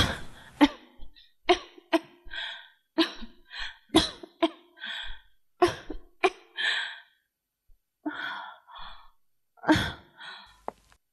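A person coughing over and over, in short separate coughs one after another, with a pause of about a second just past halfway.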